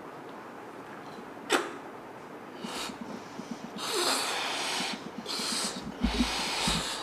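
Children blowing up rubber balloons: from a few seconds in come repeated hissing puffs of breath forced into the balloons. About a second and a half in there is one short sharp squeak, the loudest sound.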